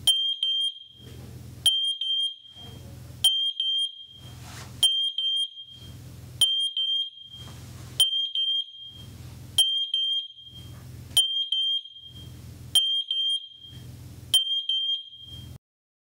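MATelec wireless battery-only smoke alarms sounding their network test: a high-pitched beep about every one and a half seconds, ten in all, then they stop. All the connected alarms sounding together shows that they are paired correctly.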